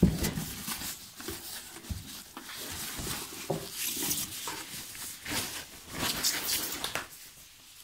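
Plastic packaging bag rustling and crinkling as a wrapped stereo unit is lifted out of a cardboard box, with a bump right at the start. The sound dies down near the end.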